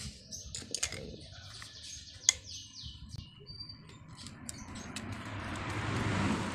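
Small clicks and knocks from handling an angle grinder's housing and setting a screwdriver into the screw in its rear end cap, with one sharp click about two seconds in. Birds chirp in the background, and a broad rushing noise swells toward the end.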